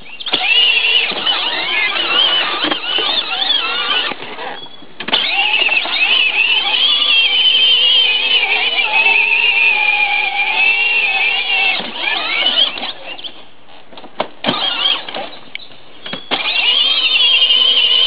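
Battery-powered ride-on toy truck's electric motors and gearboxes whining as its wheels churn through mud, the high pitch wavering with the load. The whine cuts out briefly about four seconds in, and again for a few seconds past the middle, then starts up again.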